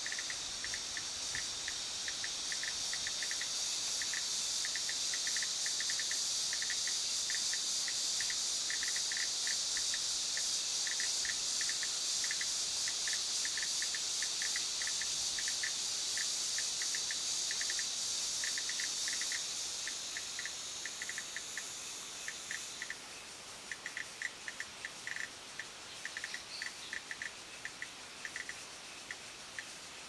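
A cicada calling: a steady, high-pitched buzz that swells over the first few seconds, holds, weakens about 20 seconds in and stops about 23 seconds in. A rapid series of short chirps repeats underneath throughout.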